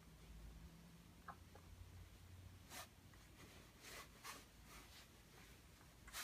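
Faint, short, sharp clicks, a few at irregular intervals in a near-silent room: a newborn baby's hiccups.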